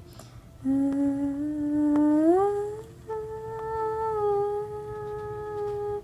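A person humming a cheerful tune: a low held note that glides up about two seconds in, then a higher note held for about three seconds until it stops abruptly.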